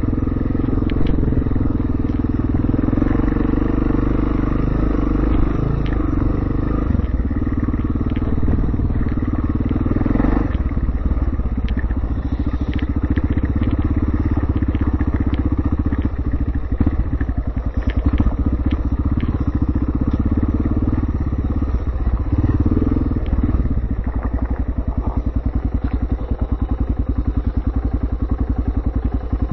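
Yamaha TT-R 600's single-cylinder four-stroke engine running as the motorcycle rides over dirt and gravel. About three quarters of the way through it drops to a slightly quieter, even, steady beat.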